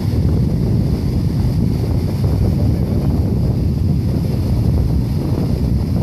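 Wind buffeting the microphone in a steady low rumble, over the wash of small sea waves breaking on a sandy beach.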